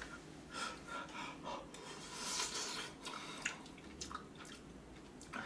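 Quiet, wet eating sounds: spoonfuls of curry broth and rice slurped and chewed from a paper cup, with a few small clicks of a plastic spoon.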